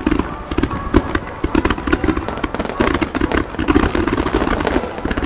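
Fireworks finale barrage: a rapid, dense string of bangs and crackles from many shells bursting at once, over a continuous low rumble.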